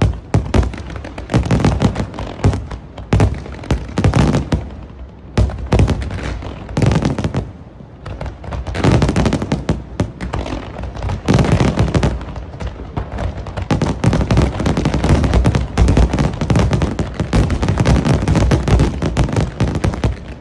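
Fireworks display: a dense barrage of aerial shell bursts, bang after bang in rapid, overlapping succession, easing off briefly twice before building back up.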